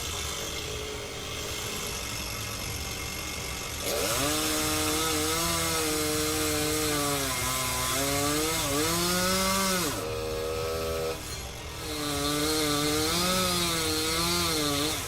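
Chainsaw cutting wood, its engine pitch dipping and rising as the chain bogs and frees in the cut. A steadier, lower engine sound comes before the cutting starts about four seconds in, and the saw eases off briefly two-thirds of the way through before cutting again.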